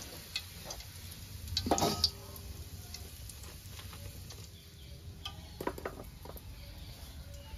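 A metal spoon knocking and scraping against a pan or kadai of frying bajji, with a faint sizzle of hot oil underneath. There are a few scattered clinks and one louder clatter about two seconds in.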